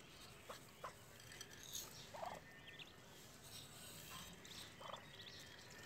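Faint, scattered peeps from Muscovy ducklings as they feed, with a few soft ticks.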